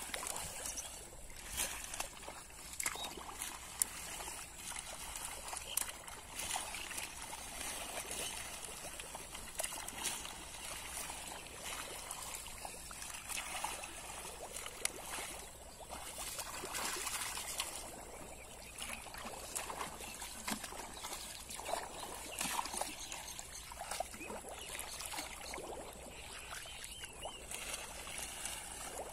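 Shallow water trickling and sloshing with many small irregular splashes as hands grope through floating water hyacinth.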